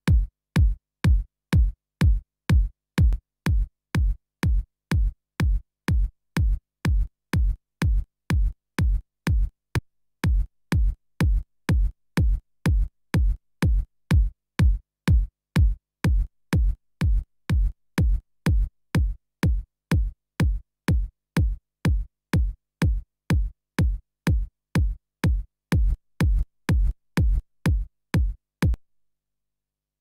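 Electronic kick drum sample looping in a steady beat, about two deep thumps a second at 114 BPM, each with a short click on top, played through the UrsaDSP Boost maximizer plugin. There is a brief hitch about ten seconds in where the loop restarts, and it stops shortly before the end.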